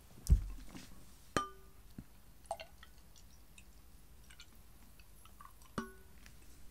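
Light clinks of a stemmed wine glass, each ringing briefly, about a second and a half in and again near the end, as a plastic shaker bottle is handled against it to pour more drink. There is a low thump just after the start and a few small ticks in between.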